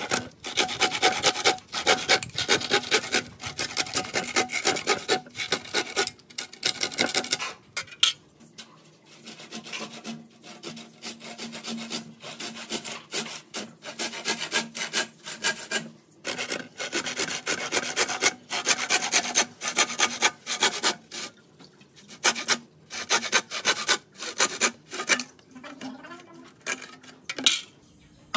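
Hand saw cutting through green bamboo: quick back-and-forth rasping strokes in several runs, with short pauses between them.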